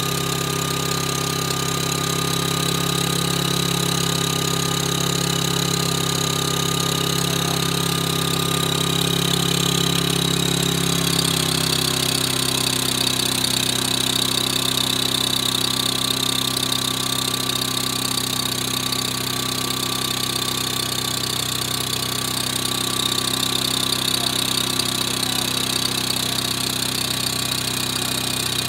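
An engine running steadily, with a high steady whine over its hum. Its low note changes about twelve seconds in, then holds steady again.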